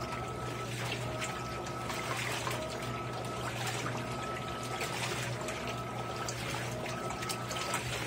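Electrolux LAI17 17 kg top-load washing machine agitating a load of towels in low water: water sloshing and splashing over a steady motor hum, with a whine that comes and goes about once a second.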